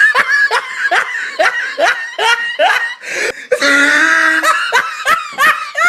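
A person laughing hard in a run of short, high-pitched bursts, about three a second, with a longer drawn-out laugh about halfway through.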